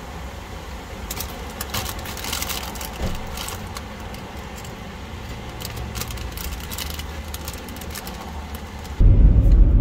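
A Doritos bag crinkling and rustling as tortilla chips are taken out and crunched, in irregular crackles. At about nine seconds it cuts suddenly to a loud low rumble inside the car.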